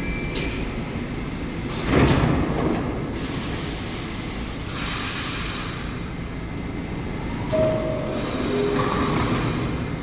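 New York City subway train of older SMEE cars running on the rails with a steady rumble. A loud knock comes about two seconds in, and short squeals from the wheels or brakes come near the end.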